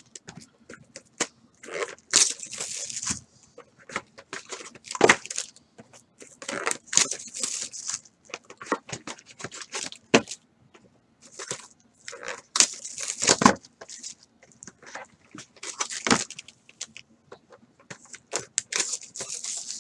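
Foil-wrapped trading card packs crinkling and rustling in irregular bursts as they are handled and stacked, with a few sharper taps as packs are set down on the pile.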